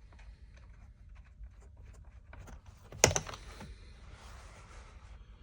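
Tool work on a car's door-sill carpet while making holes: light scattered clicks, then one sharp knock about three seconds in, followed by a short spell of rustling.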